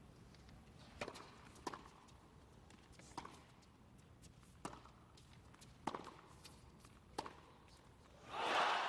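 Tennis rally: a serve and then groundstrokes, six sharp hits of racket on ball a second or so apart over a hushed crowd. Near the end the crowd noise swells up loudly as the point ends.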